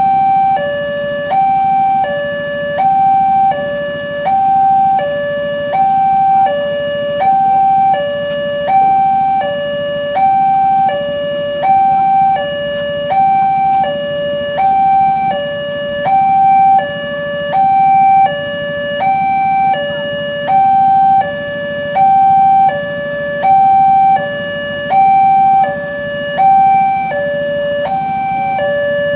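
Railway level-crossing warning alarm sounding a two-tone electronic signal, a higher and a lower tone alternating evenly, about one high-low pair every second and a half: the crossing's warning that a train is approaching.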